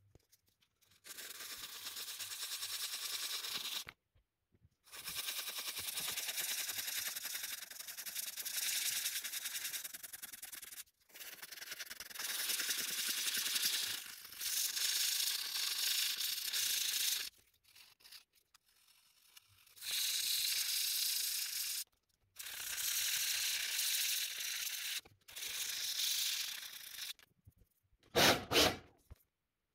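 Fine abrasive paper on a sanding block rubbed quickly back and forth over a plexiglass (acrylic) watch crystal, a dry hissing scratch. It comes in several bouts of a few seconds each with short pauses between, and a brief louder burst comes near the end.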